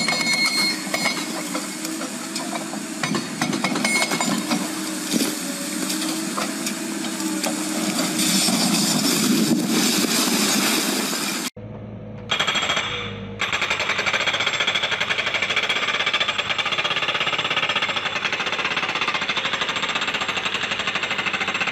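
Excavator-mounted hydraulic breaker pounding rapidly at a brick tower, growing loudest as the tower comes down, then cutting off abruptly about halfway. After a brief gap, an excavator working with a steady mechanical clatter and hum.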